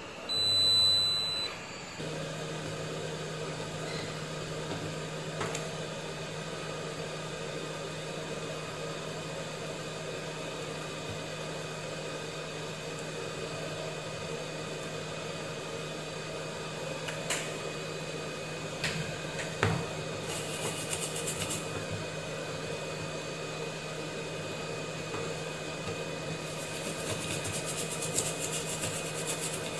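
A short electronic beep, then the steady fan hum of a hot-air rework station. A few clicks come midway, and near the end there is a bristle brush scrubbing the circuit board.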